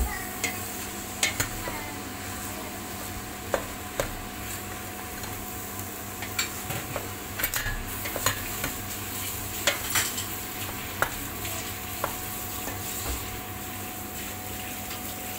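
Chopped cabbage with tomato sizzling steadily in a stainless steel pot while a wooden spoon stirs it, with scattered sharp clicks and knocks of the spoon against the pot.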